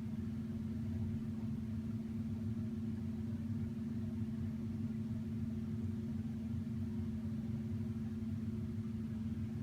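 Steady low mechanical hum with one constant droning tone, unchanging and with no sudden sounds.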